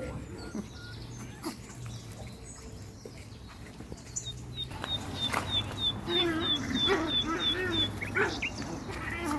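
A bird chirps about a dozen times in quick, even succession, short high notes that each dip slightly in pitch. Over the second half a small animal whines in wavering cries.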